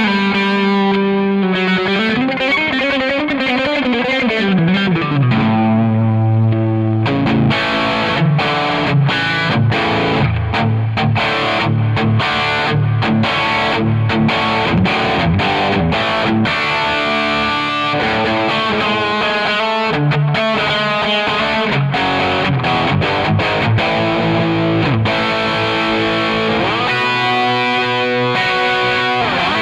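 Electric guitar played through a Zoom G5n multi-effects processor with a distorted tone. A held note wavers with wide vibrato and bends, then about seven seconds in it gives way to fast picked riffs and chords.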